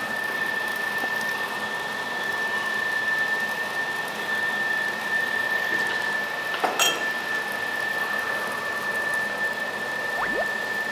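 Steady hiss with a constant high-pitched whine, and a single sharp clink about seven seconds in as a metal spoon dips into the stone pot of rice.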